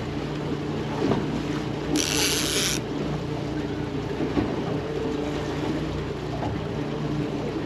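A trolling boat's engine runs steadily at low speed, a constant low hum, under wind and water noise. A short hiss cuts in about two seconds in and lasts under a second.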